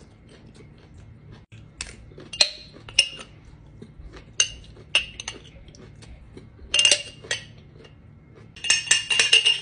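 Metal spoon clinking against a glass jar: a handful of separate clinks, then a quick run of clinks near the end as the spoon stirs in the jar.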